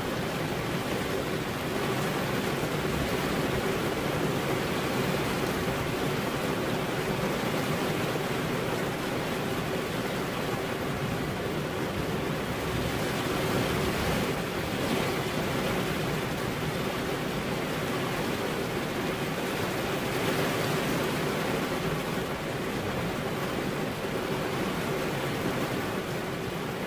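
Steady rain falling, a continuous even hiss of water with no breaks.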